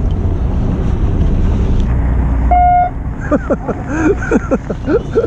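Fishing boat's engine running with a low rumble, then throttling back about three seconds in, with a short single horn beep just before it, the captain's signal that the boat is on the spot and lines can go down. A run of short squeaky rising and falling calls follows near the end.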